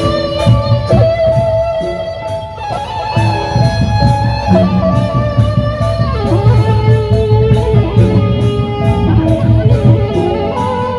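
Gendang beleq ensemble playing, with a suling bamboo flute melody over big drums and clashing cymbals keeping a steady beat.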